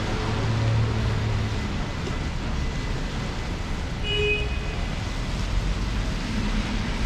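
City street traffic noise, a steady hum of vehicles, with one engine droning low through the first second or so. A brief high-pitched tone sounds about four seconds in.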